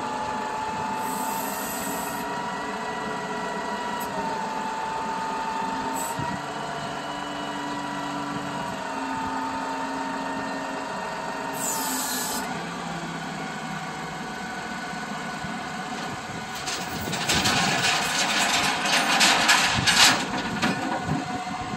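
Flatbed tow truck's hydraulic bed system whining steadily as the tilted bed is lowered back level onto the truck, its pitch shifting a few times. Near the end comes a louder, rougher stretch of clattering noise.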